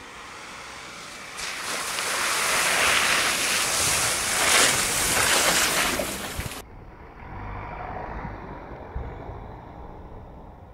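Ford Ranger Raptor pickup driving through muddy puddles, its tyres throwing up water and mud in a loud, rushing splash that builds over a few seconds and then cuts off abruptly. Afterwards comes the quieter low rumble of the pickup's engine as it drives on sandy ground.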